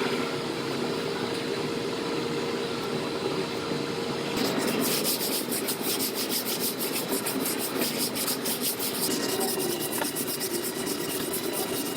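Rubbing and scraping on a truck's bedside panel during body-filler work. It starts as a steady rub, then from about four seconds in turns into quick repeated strokes, several a second.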